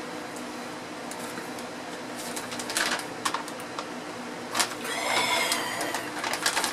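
Plastic snack packaging crinkling in the hands, then torn open with a longer, louder tearing rip about five seconds in, over a steady low hum in the room.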